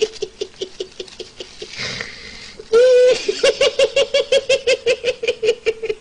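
A man laughing uncontrollably in rapid high-pitched pulses, about six a second. About two seconds in he draws a breathy gasp, then lets out a short loud squeal and goes straight back into the fast laughter.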